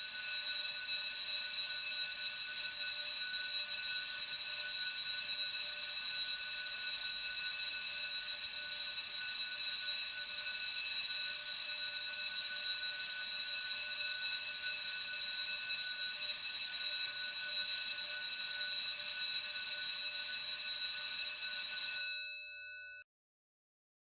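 School bell ringing continuously and loudly for about 22 seconds, then cut off, its lower tones fading out over about a second.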